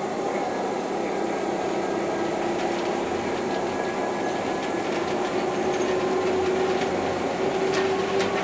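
Diesel locomotive running and moving off slowly under throttle, heard from inside its cab: a steady mechanical rumble with a sustained tone that slowly rises in pitch as it gathers speed, and a few sharp clicks near the end.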